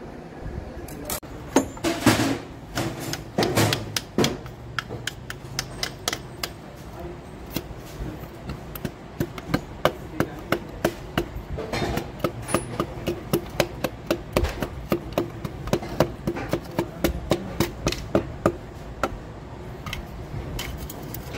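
A piston being tapped down through a steel ring-compressor sleeve into a cylinder bore of a Hyundai Creta diesel engine block with a wooden handle. There are a few heavier knocks at first, then a long run of quick, light taps, about two or three a second.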